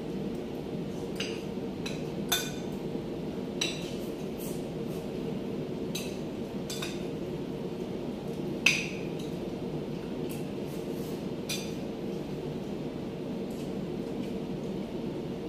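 Spoons and forks clinking against plates and bowls as two people eat: scattered light clinks, with one louder, ringing clink about two-thirds of the way through. A steady low hum runs underneath.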